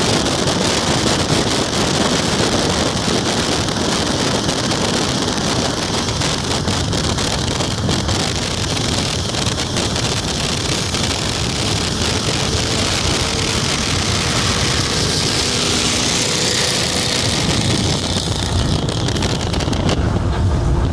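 Cars running at high speed on a highway: a steady mix of engine, tyre and wind noise, with wind buffeting the microphone.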